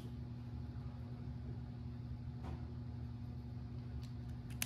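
Quiet room tone: a faint, steady low hum, with a short light click near the end.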